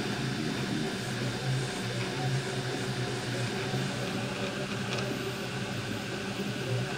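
Prusa i3 3D printer running mid-print: a steady whir from its cooling fan, running at full speed, over a low fluctuating motor hum, with a brief click about five seconds in.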